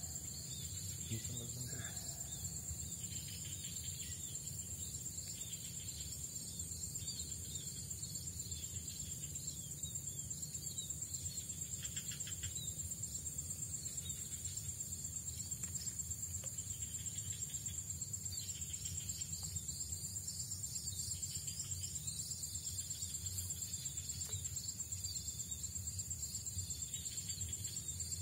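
Steady high-pitched trilling of insects, a cricket-like chorus, over a low even background rumble.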